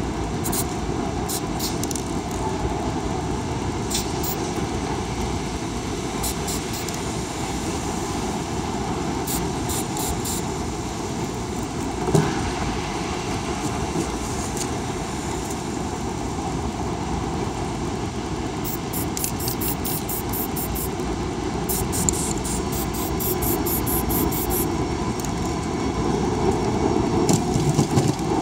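Steady city street noise, a low traffic rumble. Several short runs of quick high clicks come and go, and there is a single knock about twelve seconds in.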